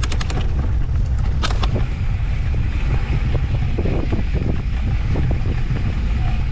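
Wind buffeting the microphone as a rider descends a dirt mountain-bike trail fast on an off-road handcycle, a steady low rumble, with a few sharp rattles or clicks from the bike near the start and about a second and a half in.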